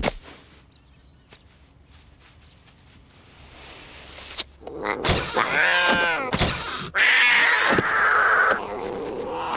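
Cartoon cat's strained, wavering yowl, preceded by a sharp click and a rising whoosh, then followed by a loud harsh screech as the cat is yanked through the air.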